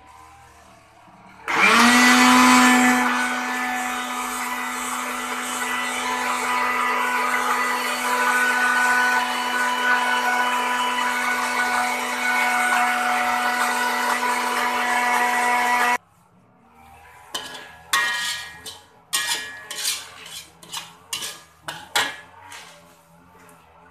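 Electric countertop blender spinning up about a second and a half in and then running at a steady pitch as it grinds a wet chili and spice paste, until it stops abruptly. Near the end comes a run of sharp scrapes and taps from a metal spatula working the paste in an aluminium wok.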